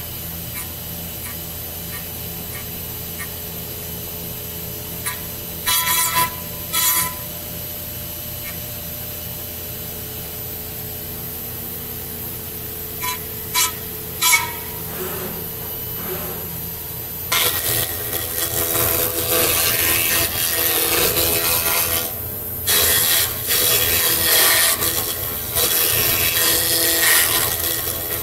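A steady machine hum with a few short hissing bursts, then, about 17 s in, a 5-axis CNC mill's end mill starts cutting a Japanese cedar block: a loud, dense, scraping chip-cutting sound with rapid irregular crackle.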